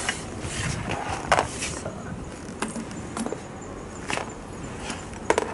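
Light clicks and knocks of a Mikuni motorcycle carburetor, just removed from the engine, being handled and turned over in the hands, its parts and hoses tapping now and then.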